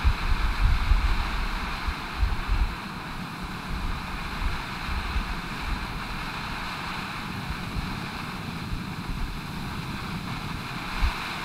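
Screwball ground fountain firework spraying gold sparks with a steady hiss, with gusty low wind rumble on the microphone, heaviest in the first few seconds.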